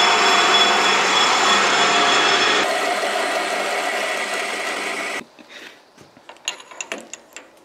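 Colchester Bantam metal lathe running under power, a steady mechanical din with a few steady tones, while a drill bores into the spinning cast iron bar. It cuts off suddenly about five seconds in, leaving a few light metallic clicks and taps.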